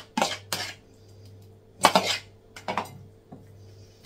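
A utensil scraping and knocking against a plastic bowl as it is emptied of oil that has set in the fridge onto diced potatoes. There are about six short separate strokes, the loudest about two seconds in, with quiet gaps between them.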